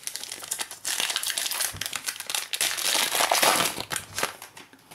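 Shiny plastic wrapper of a 2017-18 Panini Prizm basketball card pack crinkling as it is torn open and pulled apart to get at the cards. The crinkling fades out near the end.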